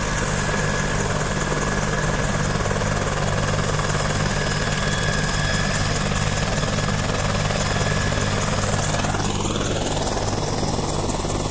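Helicopter running on the ground ahead of takeoff, its turbine and turning rotor making a steady, unbroken drone.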